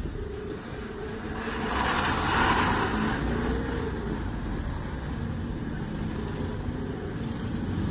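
Road traffic heard from inside a car in slow, congested town traffic: a steady low engine rumble, with a louder rushing hiss for about a second and a half, starting about a second and a half in.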